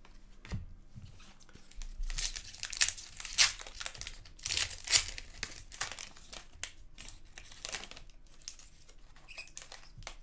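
Hockey trading cards and pack wrappers being handled on a table: a run of short crinkling, scratchy rustles, busiest a couple of seconds in.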